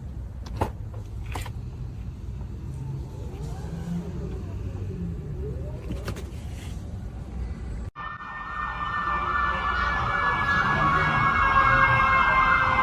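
Low traffic rumble with a few clicks. After a sudden cut about two-thirds of the way in, an emergency vehicle siren wails with a fast warbling pitch and grows louder.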